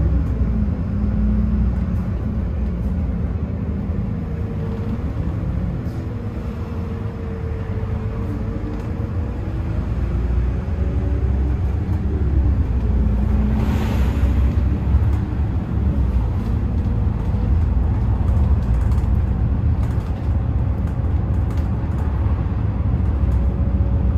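Cabin noise of a moving route bus: a steady low engine and road rumble, with an engine tone that falls and rises again as the bus slows and picks up speed. A short hiss sounds about halfway through.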